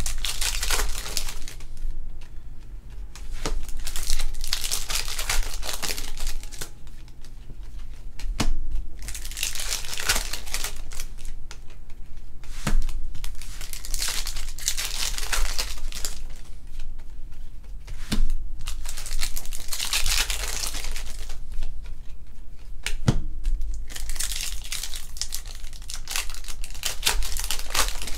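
Plastic trading card pack wrappers crinkling as they are torn open and handled by hand, in repeated bouts of a few seconds each, with a few sharp clicks in between.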